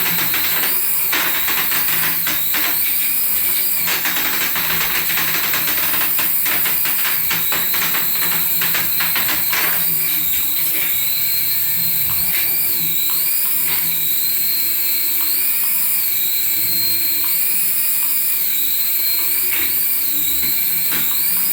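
Small electric motor of a remote-control toy whining continuously, its pitch rising and falling again and again as the throttle is worked. A dense rattle runs through it for several seconds near the start.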